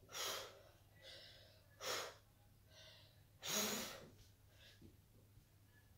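A boy breathing hard from the effort of push-ups: three loud, breathy exhales about a second and a half to two seconds apart, with fainter breaths between them.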